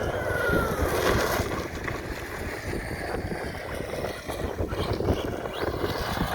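Wind buffeting the microphone, with the electric whine of a Traxxas Sledge RC truck's brushless motor, which falls in pitch during the first second.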